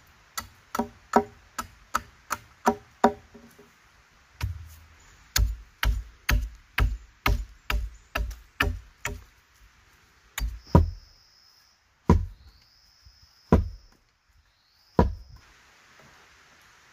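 Machete chopping into a freshly cut log to sharpen its end into a point: sharp wooden chops about two a second, each with a brief ring, then a few slower, separate blows in the second half.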